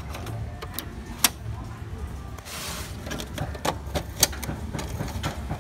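Sharp plastic clicks and knocks from the rear cover and latch of an HP Color LaserJet Pro M177fw laser printer being handled, with a brief rushing scrape about halfway through, over a steady low rumble.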